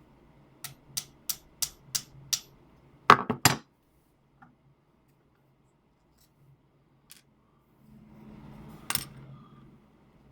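Six light, evenly spaced taps, about three a second, then three quick, louder knocks, as a tanto's handle and fittings are knocked loose to take the sword apart. Near the end come a soft rustle of handling and one sharp click.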